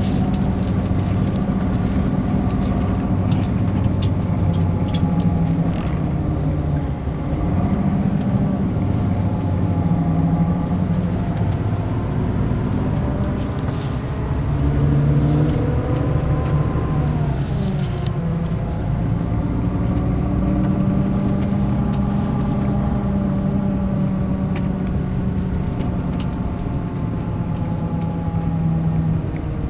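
Mercedes-Benz O500 RSD BlueTec5 coach's diesel engine running under way. Its pitch wavers, climbs a little before halfway, then drops sharply just past halfway before settling again. A few light clicks come in the first few seconds.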